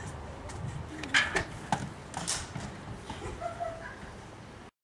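Footsteps scuffing up concrete front steps and a house's front door being opened and shut: a series of knocks and clatters, the sharpest about a second in.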